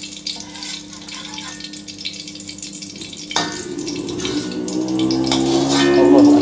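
Metal ladle pressing fried onions and chillies in a wire mesh strainer held over a wok, draining the oil back into the pan. Metal clinks against the strainer and wok, with a ringing strike about three seconds in and a louder one near the end, over a light sizzle of dripping oil.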